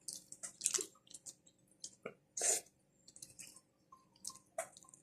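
Wet chewing and lip smacks of people eating creamy seafood: a scattered string of short, sharp smacks and clicks.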